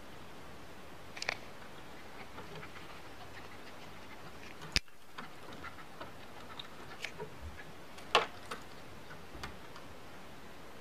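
Scattered light clinks of a dog's metal tie-out chain as the dog moves, over a steady low hiss; one sharp click about halfway and the loudest clink a little past two-thirds in.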